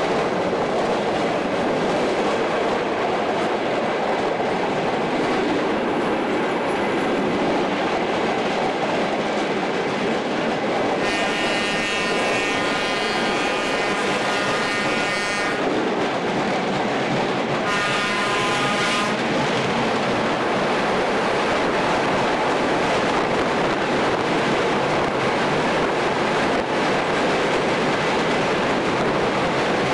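A train running with a steady rolling noise of wheels on rails. Its horn sounds twice about eleven seconds in: one long blast of several seconds, then a short one.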